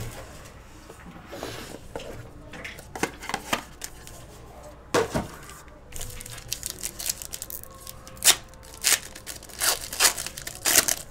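A plastic-foil trading card pack wrapper crinkling as it is handled, then torn open. The crinkling and tearing turn into a quick run of sharp crackles near the end.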